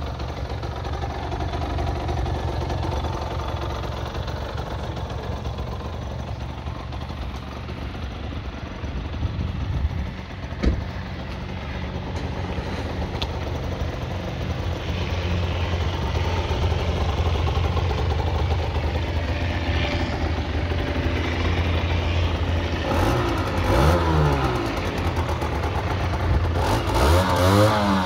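Aprilia RS50's 50cc two-stroke single idling steadily, then revved in short throttle blips near the end, the pitch rising and falling quickly several times. A single sharp knock about ten seconds in.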